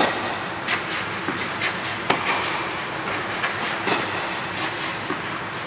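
Tennis rally: rackets hitting the ball back and forth and the ball bouncing on a clay court, a sharp pop every second or so, inside an air-supported dome. A steady background hum runs underneath.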